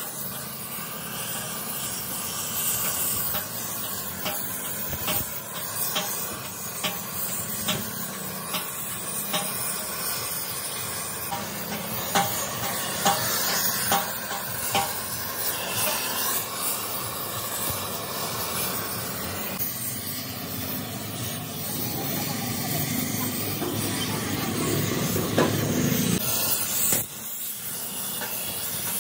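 Gas torch flame hissing steadily as it heats the trunnion on a Massey Ferguson tractor differential housing to free it for removal. The flame gets louder and deeper for several seconds near the end, then drops off sharply.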